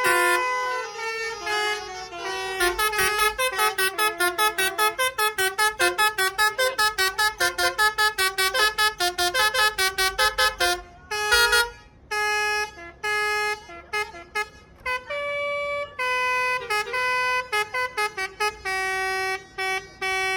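Basuri musical air horns playing a tune: a run of quick staccato notes at about five a second, then longer held notes with short breaks in the second half.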